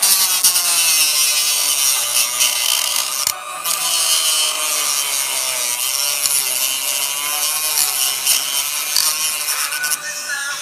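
Handheld rotary tool with an abrasive cutoff wheel grinding into the plastic shell of a Nerf Sharpfire blaster. The motor's whine wavers in pitch as the cut goes on, breaks off briefly about three seconds in, and stops about ten seconds in as the wheel is lifted away.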